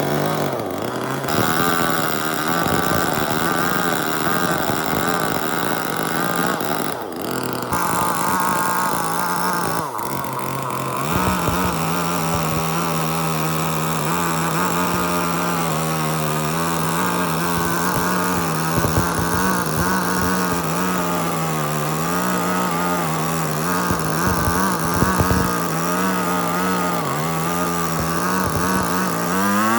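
A power tool's engine or motor running steadily at high speed, its note shifting abruptly a few times.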